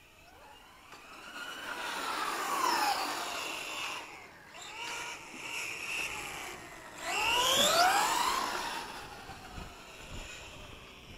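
Brushless motor and gear drive of an LRP S10 Blast BX RC buggy whining under throttle, with the pitch sweeping up and down as it speeds up and slows. The whine is loudest in two spells about five seconds apart. The gear mesh has been freshly re-set after rubbing, and the buggy sounds somewhat better for it.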